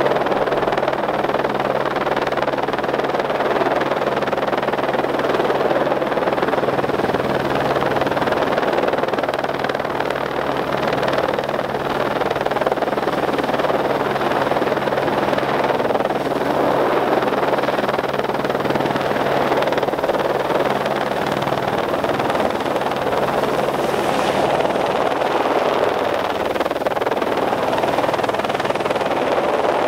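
Helicopter hovering overhead while carrying a slung load on a long line: a steady rotor and engine noise with a low, even hum.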